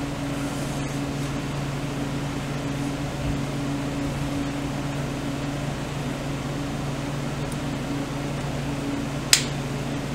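Steady low hum of a running motor, such as a fan or heater, with one sharp click about nine seconds in.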